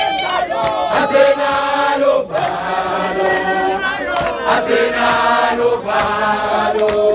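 Crowd of marching protesters singing a struggle song (igwijo) together in chorus, many voices holding and changing notes at once.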